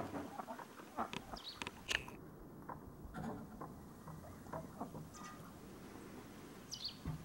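Ducks dabbling and splashing at the water's surface: an irregular run of small wet clicks and splashes as their bills work the water.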